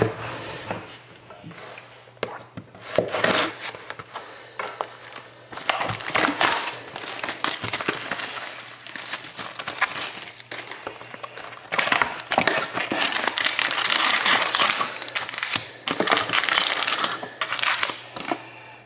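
Clear plastic shrink-wrap being torn off a cardboard trading-card box and crumpled by hand: irregular crinkling and crackling in bursts, busiest in the second half.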